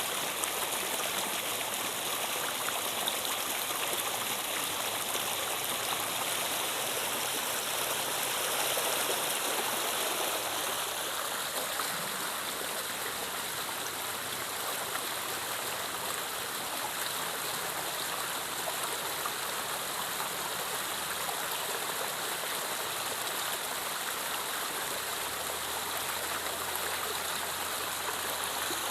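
River water flowing steadily over its bed, an even, continuous rush with most of its sound in the upper range.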